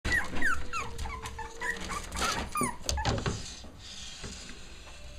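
Five-week-old Cavalier King Charles Spaniel puppies whimpering and yipping, a string of short high cries that fall in pitch through the first three seconds, then a quieter stretch.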